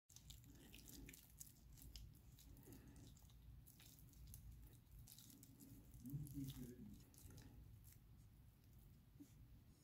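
Faint stirring of soft coconut oil and honey in a glass bowl: soft squishing with small clicks of the utensil against the glass, and a brief low hum about six seconds in.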